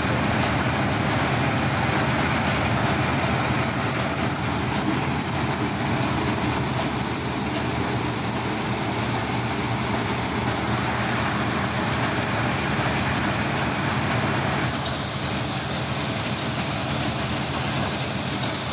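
Tractor-driven grain thresher running steadily under load: the tractor engine and the spinning threshing drum make a constant, loud mechanical din.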